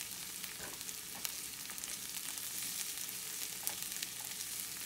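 Diced onion and garlic sizzling steadily in hot olive oil in a frying pan, with faint crackles, while being stirred with a silicone spatula. The onions are being sautéed until tender.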